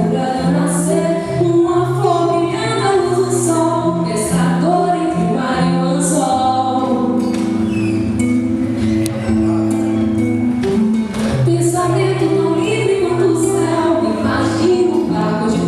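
Live MPB song performance: continuous singing with instrumental accompaniment.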